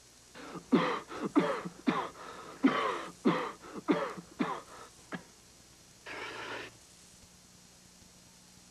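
A quick run of short coughs from several people, each dropping in pitch, for about five seconds, followed by a single breathy burst a little after six seconds in.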